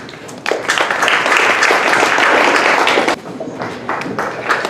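Audience applauding. The clapping starts about half a second in, eases off a little after three seconds, and swells again near the end.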